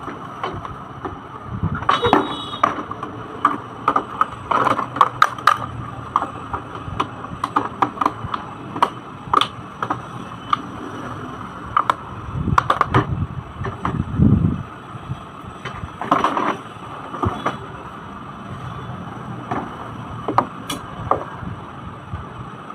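Hard plastic parts of a toddler's ride-on push car being handled and fitted together: irregular clicks, knocks and rattles, with a few heavier thuds, over a steady background hum.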